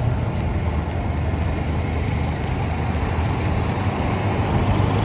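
A car engine idling, a steady low rumble.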